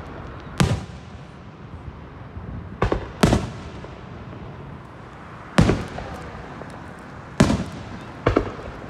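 Aerial firework shells bursting overhead: about seven sharp bangs at uneven gaps of one to two seconds, each with a brief echoing tail, the last two close together near the end.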